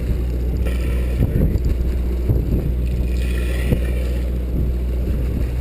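Fishing boat's engine running with a steady low hum and rumble, with wind buffeting the microphone. Brief higher-pitched sounds rise over it about a second in and again around three to four seconds in.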